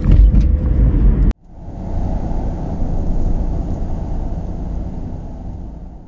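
Car driving, with steady road and engine rumble heard from inside, which cuts off abruptly about a second in. It is followed by a low rumbling swell that rises quickly and then slowly fades away.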